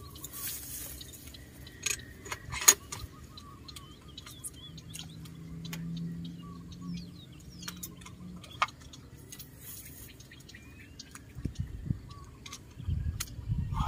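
Scattered sharp clicks and a light jingling rattle, with small birds chirping in the background. A low steady hum comes in for a few seconds in the middle, and a few low thuds follow near the end.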